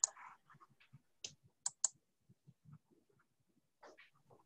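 Sharp computer clicks, as from a mouse or keys: a double click at the start, then three quick clicks a little over a second in, with a softer one near the end.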